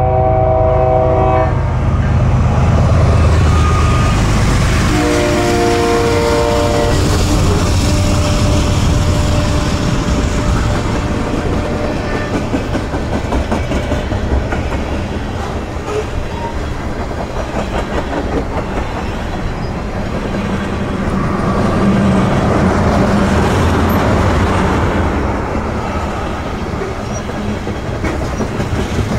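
BNSF freight train's horn sounds a chord that ends about a second and a half in and sounds again briefly around five to seven seconds in, over a heavy low rumble. Then the manifest's freight cars roll steadily past, with wheel clatter on the rails.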